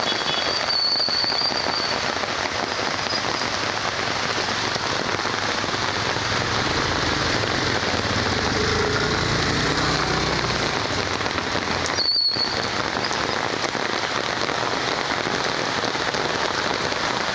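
Rain falling steadily, a dense even hiss of drops.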